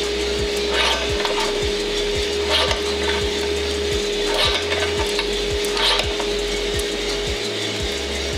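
Small drum coffee roaster running near the end of a roast, with a steady motor hum and coffee beans tumbling and rattling in the rotating drum. Four short scraping rattles come about every second and a half as the sample trier is worked to check the beans.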